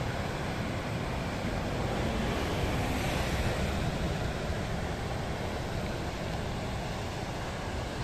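Ocean surf breaking and foaming onto the shore: a steady rushing noise with a deep rumble underneath, swelling slightly a couple of seconds in.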